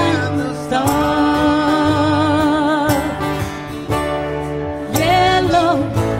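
Live folk band music with guitar and bass under a melody line. About a second in, the melody holds a long note with vibrato, and a new phrase starts near the end.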